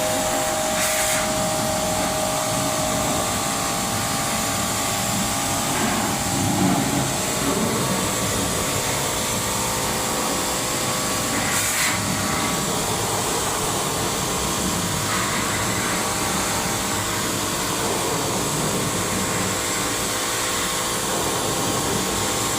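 A motor-driven machine running steadily with a continuous whirring hiss and no change in speed, with a few faint clicks.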